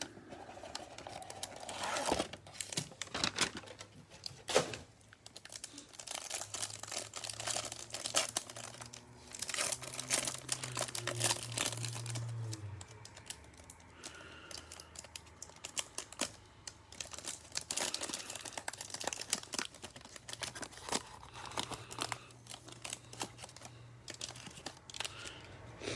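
Cellophane wrappers on trading card packs crinkling and tearing as they are peeled open by hand, with cardboard box flaps pulled open at the start; an irregular run of crackles throughout.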